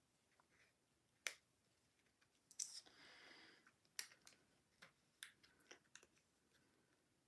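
Faint clicks and taps of fingers and fingernails pressing small glued cardstock pieces onto a paper card, with a short paper rustle about three seconds in.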